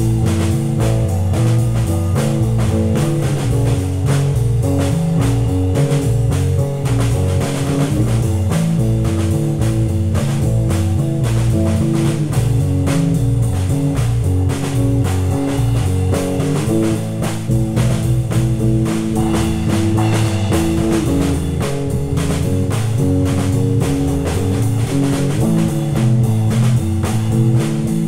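Instrumental psychedelic rock jam: electric guitars over a busy drum kit, playing continuously at a steady loud level, the chords shifting every four or five seconds.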